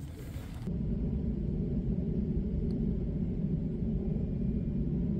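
A steady low rumble that comes in suddenly under a second in and then holds level.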